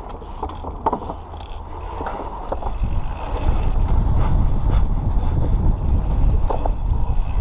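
Wind buffeting the microphone of a helmet-mounted action camera on a mountain bike riding a dirt trail. It grows louder about three seconds in as the bike gathers speed, with a few clicks and knocks from the bike and tyres over the ground.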